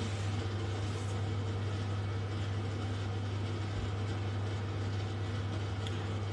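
Steady low hum under faint, even room noise.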